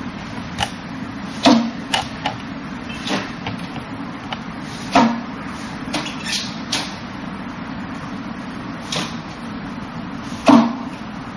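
Forearms and hands striking the wooden arms and trunk of a Wing Chun wooden dummy (mook yan jong): about a dozen hard wooden knocks at an uneven pace, some in quick pairs, the loudest near the end, over a steady background hum.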